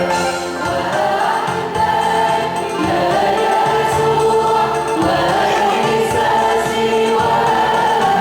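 An Arabic Christian hymn being sung with musical accompaniment, the voice holding long notes.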